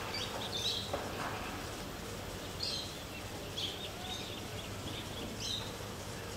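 Birds chirping, with short high calls every second or two over a steady background noise.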